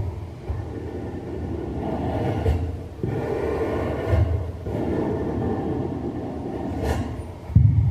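Amplified experimental sound performance: objects stirred and scraped in a water-filled paddling pool are picked up and played through an amplifier as a low rumbling noise that swells and fades in waves. There is a sharp click about seven seconds in and a heavy thump near the end.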